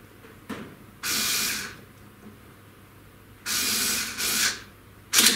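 Two short hissing rasps of under a second each, then a sharp click near the end, from a hand tool tightening the bolts of a mounting plate on a CNC router's gantry.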